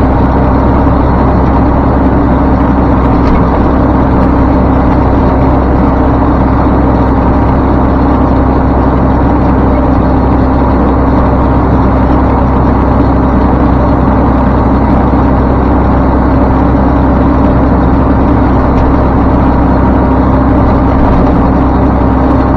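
Dump truck's diesel engine and road noise heard inside the cab while driving, a loud steady drone with a low rumble that does not change.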